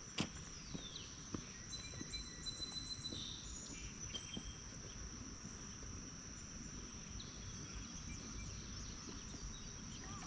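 Insects, crickets or katydids, keep up a steady high-pitched buzz, with a few short whistled bird calls about two and four seconds in.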